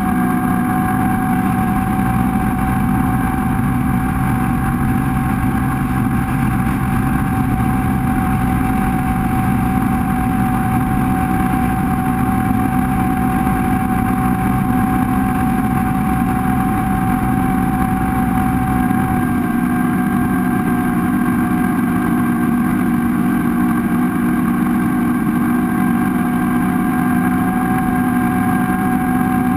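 Motorboat engine running steadily at speed, with a constant whine over the rush of water and wind; the deepest rumble eases slightly about two-thirds of the way through.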